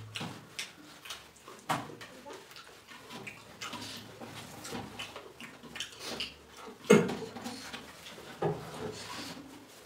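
Eating rice and chicken curry by hand from a steel thali: wet mouth and chewing noises with scattered taps and scrapes of fingers on the metal plate, the loudest a knock about seven seconds in.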